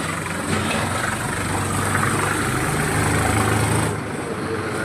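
An engine running steadily at idle, a low even hum that eases off about four seconds in, with a sharp click near the end.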